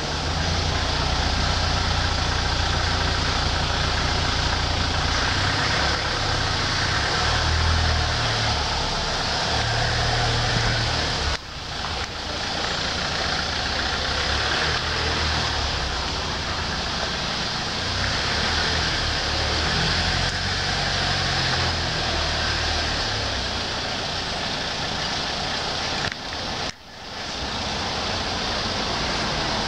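Steady rushing noise with an uneven low rumble, which briefly drops out twice.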